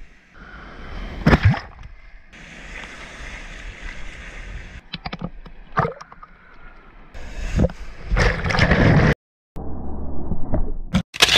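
Sea water splashing and sloshing at the shore, with a few loud splashes, in short clips that cut in and out abruptly.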